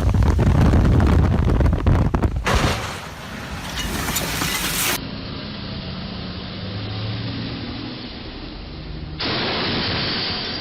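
Vehicle noise across several short clips, changing abruptly at each cut: loud rumble and wind noise on the microphone first, then a quieter engine running steadily, then a louder steady hiss near the end.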